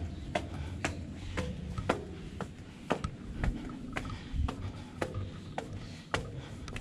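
Footsteps on a steel staircase, a sharp clack about twice a second as each foot lands on a metal tread.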